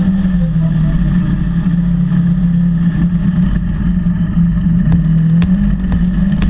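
Polaris RZR 900 side-by-side's parallel-twin engine running steadily under way, its pitch wavering only slightly. From about five seconds in, a run of sharp knocks sounds over the engine.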